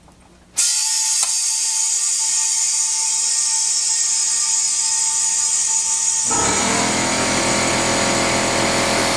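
Compressed air hissing steadily into a paint pressure tank through the hose's inlet fitting as the tank fills. About six seconds in, the sound turns into a louder, fuller rush of air as the tank's pop-off safety valve opens and vents, popping at about 50 psi, below the tank's 60 psi rating.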